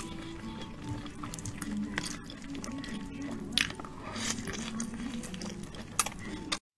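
Close-miked eating sounds: a kelp-wrapped rice roll being bitten into and chewed. A few sharp wet mouth clicks and smacks stand out over the steady chewing.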